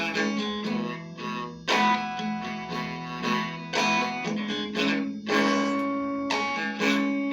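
Acoustic guitar playing an instrumental passage, chords strummed and left to ring, with a new strum about every one and a half to two seconds.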